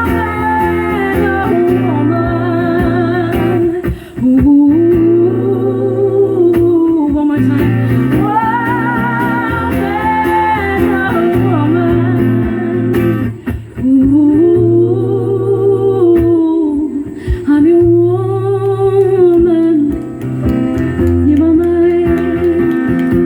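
Live folk song: a woman's voice sustains long arching sung notes with vibrato over a plucked and strummed acoustic guitar, with brief breaths between phrases about 4, 13 and 20 seconds in.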